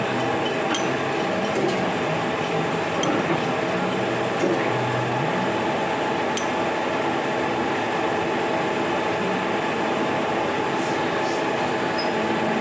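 Milling machine running steadily, with a few light metallic clinks.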